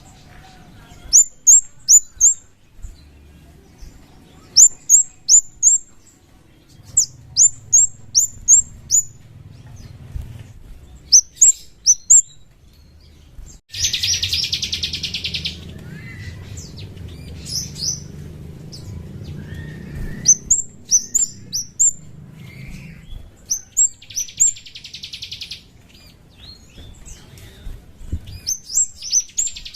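Kemade (scarlet-headed flowerpecker) calling: sharp, high chirps that sweep downward, mostly in quick runs of about four, repeated every couple of seconds. A buzzy rapid trill comes about halfway through and twice more near the end.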